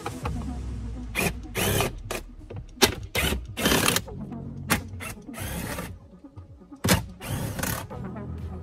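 Ratcheting screwdriver clicking in short bursts with pauses between as screws are turned out of a plastic dashboard trim panel.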